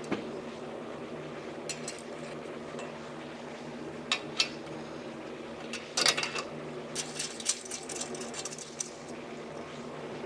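Sheet-steel cart parts and bolt hardware clinking and knocking as a cylinder bracket is fitted and fastened by hand: a couple of sharp clicks about four seconds in, a louder knock around six seconds, then a spell of light rattling. A steady low hum runs underneath.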